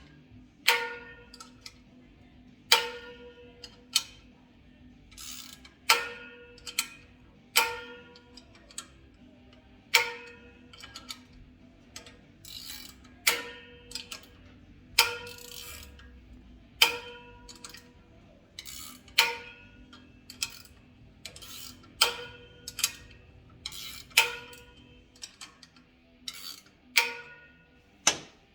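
A string of sharp metallic clicks, each with a brief ring, one every second or two: the slotted spring-adjusting nuts of a Harley ratchet-top four-speed clutch being turned and clicking over the locking tabs of the spring retainer plate.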